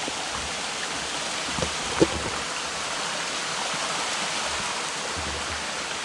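Steady rushing of water in a rocky mountain stream near a waterfall, with a couple of light knocks about two seconds in.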